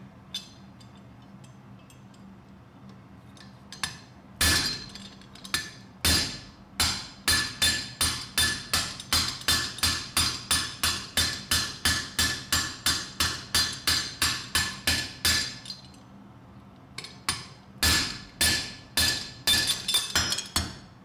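Blacksmith's hammer forging iron on an anvil: sharp, ringing blows at about two a second, after a few quiet seconds at the start. The blows break off for a second or two near the end, then resume.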